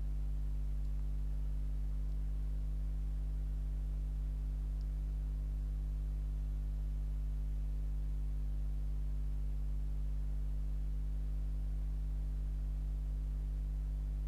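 Steady low electrical hum with a row of higher overtones, unchanging throughout.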